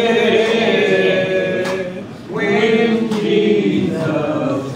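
A man and a woman singing a gospel song a cappella, with no instruments, holding long notes and pausing briefly for breath about two seconds in.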